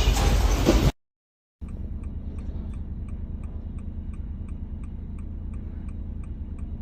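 Loud rattling noise that cuts off abruptly under a second in. After a brief gap, a steady low hum with a faint, fast, regular ticking, about three ticks a second.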